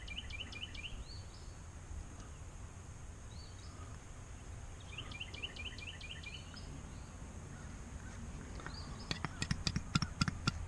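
A songbird singing a phrase of short rising chirps, twice, over a steady low background hum. Near the end comes a quick run of sharp clicks and taps.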